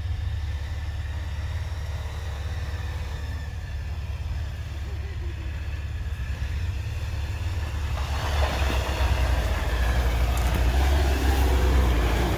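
Jeep Wrangler Rubicon crawling up a rutted trail of snow and dirt, its engine running with a low steady rumble. It grows louder about eight seconds in as the Jeep draws close.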